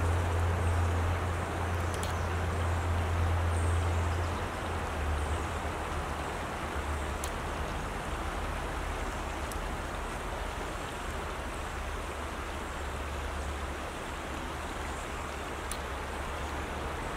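Creek water running steadily over a shallow gravel riffle. Under it is a low rumble, strongest for the first four seconds and then fainter.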